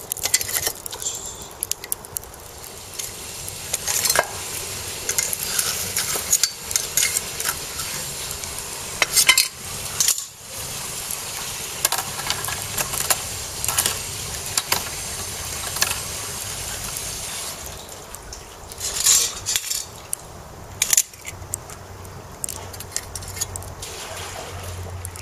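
Metal tongs and a wire grill net clinking and scraping against a brush cutter's steel muffler and the rim of a clay charcoal stove, in sharp scattered clicks. Under them is a steady hiss from the charcoal fire, which eases after about two-thirds of the way through.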